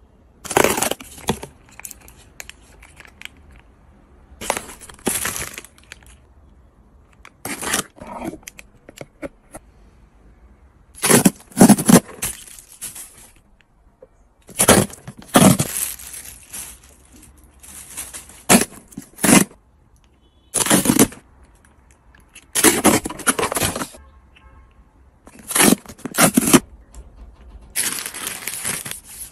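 Groceries, plastic packaging and storage containers being handled while a refrigerator is restocked: about a dozen short bursts of crinkling, rustling and knocking, each a second or so long, with quiet gaps between them.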